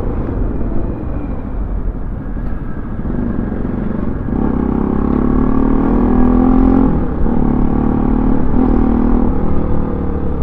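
Bajaj Pulsar NS200's single-cylinder engine running while riding, its note growing stronger about four seconds in and dipping and rising a few times with the throttle, over a low rush of wind and road noise.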